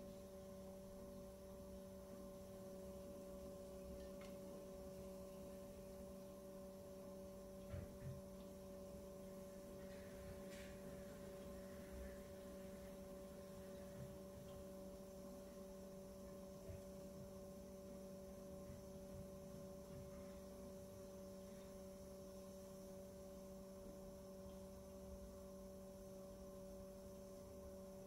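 Electric pottery wheel running with a faint, steady hum while a pot is being trimmed on it, with a couple of faint knocks about eight seconds in.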